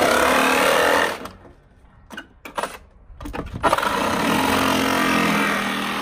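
Reciprocating saw cutting into the sheet-metal outer jacket of a water heater in two runs: the first stops about a second in, and the second starts again about three seconds in.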